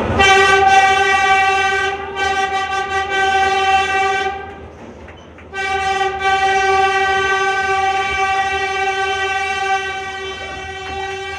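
New York City subway train horn sounding two long blasts of one steady tone: the first lasts about four seconds and the second about six, with a second's gap between them.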